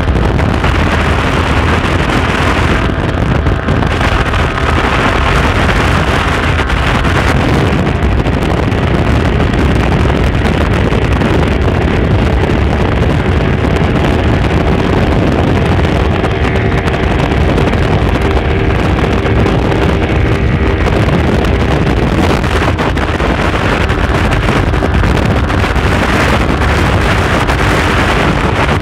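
Yamaha R15 V3's single-cylinder engine running hard in sixth gear at high speed, heard through loud, steady wind buffeting on the microphone.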